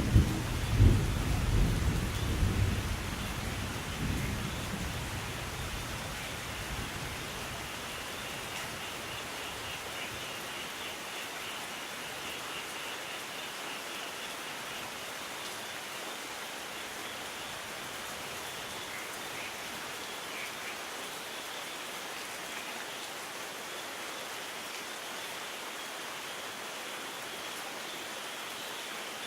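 Steady rain, with a low rumble of thunder at the start that dies away over the first several seconds, leaving an even hiss of rainfall.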